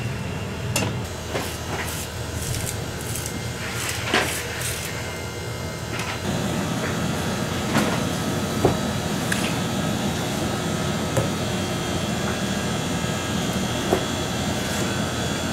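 Knife scraping the skin of a bluefin tuna loin: a run of quick scrapes, followed later by a few single sharp ticks of the blade as the loin is sliced. A steady low hum runs underneath.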